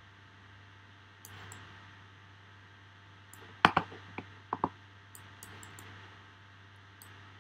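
Sharp clicks from working a computer mouse and keyboard: a loud close pair about halfway through, then three lighter ones, with faint high ticks scattered around them. A steady low electrical hum runs underneath.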